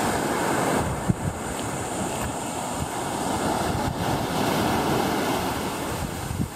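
Small waves breaking and washing up on a sandy beach, with wind buffeting the microphone as a steady rush.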